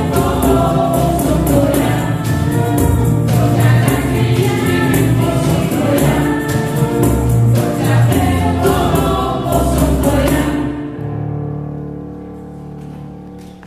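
Mixed young voices singing a Christian song in harmony, with a handheld tambourine keeping the beat. About ten and a half seconds in the tambourine stops and the final chord is held and fades away.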